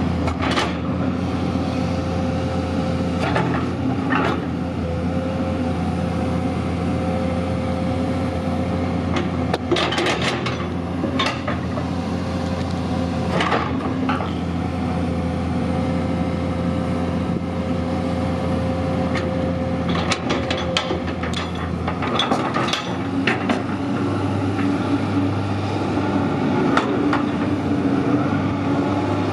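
Komatsu PC210LC-8 hydraulic excavator's six-cylinder diesel running steadily under hydraulic load as the boom and bucket work, with a thin steady whine for much of the time. Several sharp metallic knocks and clanks come from the steel bucket and its linkage. About three-quarters of the way through, the engine note rises and grows stronger as the load comes on.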